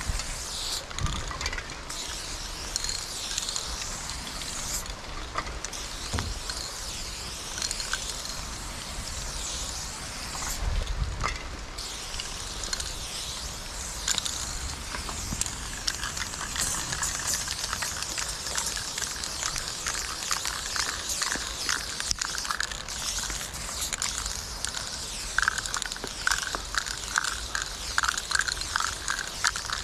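Aerosol spray paint can hissing in long spurts as paint is sprayed onto a wall, with a run of quick rattles near the end.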